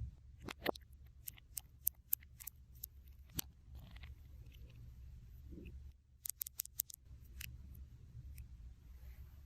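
Quick sharp clicks and snips in two clusters, one about half a second in and another about six seconds in, over a steady low hum.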